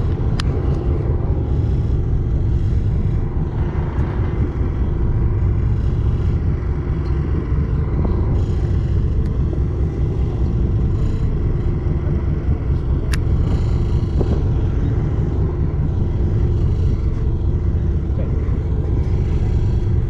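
Fishing boat's engine running with a steady low drone and a held hum. A sharp click just after the start and another about thirteen seconds in.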